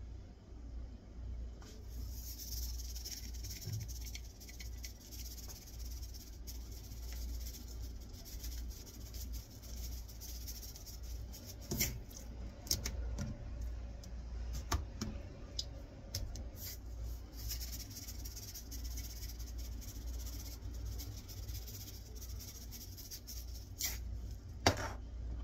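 Cajun seasoning shaken from a shaker canister onto raw steaks: stretches of soft, high hiss from the falling granules, with scattered clicks and taps as the can is handled and a sharper tap near the end, over a steady low hum.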